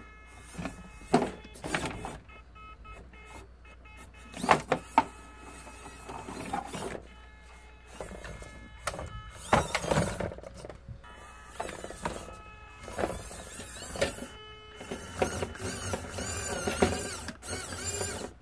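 Mini RC crawler's small electric motor and gears whirring in short stop-start bursts as it is driven slowly over obstacles. Knocks and clicks come from its tyres and chassis bumping over the hard plastic and cardboard beneath.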